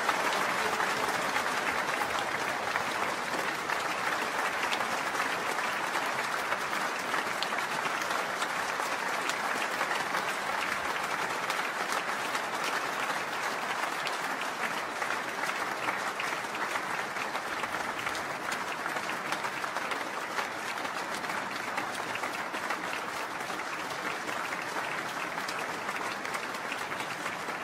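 Concert audience applauding: a dense, steady clapping that eases off slightly toward the end.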